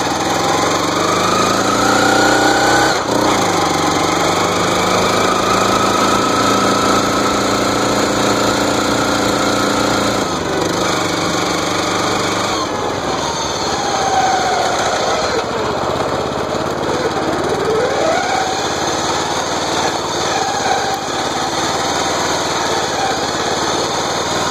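Riding lawn mower's small engine running continuously as the mower drives along, its pitch rising and falling several times with changes in speed. The mower's drive gears are misaligned.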